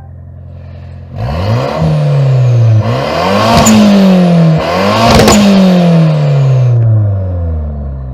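Car engine idling, then revved three times: each rev climbs quickly and falls away slowly toward idle, with a sharp crack at the top of the second and third revs.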